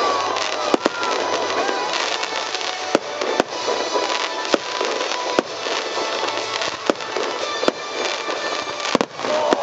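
Aerial firework shells bursting in a display: sharp bangs about once a second over a steady noisy wash between them.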